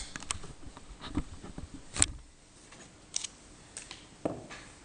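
Scattered light clicks and taps of small steel lathe parts being handled, with one sharper click about two seconds in.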